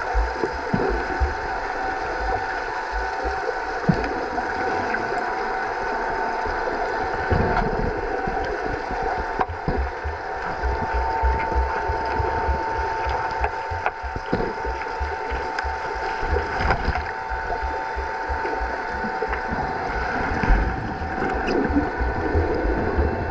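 Sound heard underwater in a swimming pool during an underwater hockey game: a steady hum holding a few constant tones, with bubbling and scattered sharp clicks and low knocks.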